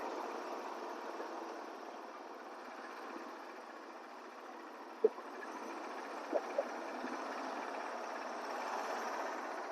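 Steady running noise from the sawmill's engine or machinery, with one sharp knock about five seconds in and two lighter knocks about a second later.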